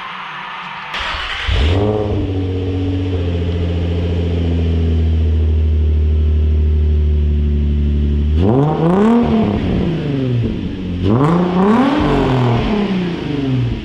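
Nissan 350Z's VQ V6 being started: a brief crank about a second in, the engine catching and settling to a steady idle, then revved twice, each rev rising and falling back to idle. It is heard through its unmodified exhaust with both tailpipes open, before any bypass valve is fitted.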